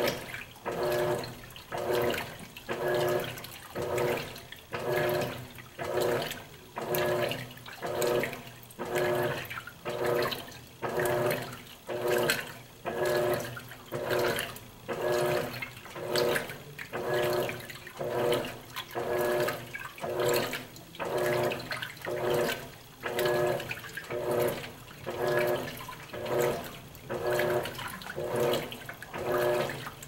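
Electrolux LAC12 top-load washing machine agitating: the agitator swishes the laundry back and forth through the water about once a second, each stroke a surge of sloshing with a motor hum, in an even rhythm.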